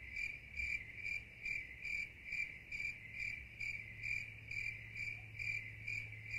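A cricket chirping steadily at night, a short high-pitched chirp about twice a second. A steady low hum lies underneath.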